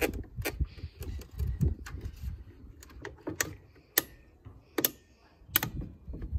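Scattered sharp metal clicks and light taps, irregularly spaced, from vise-grip locking pliers working a spring hose clamp on a coolant reservoir hose, over low handling rumble.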